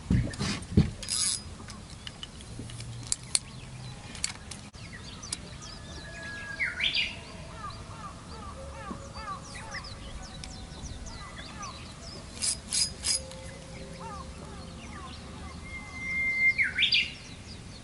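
Birdsong: twice a long whistled note that ends in a quick rising flourish, with fainter chirps between. A few sharp knocks sound over it, three in quick succession past the middle.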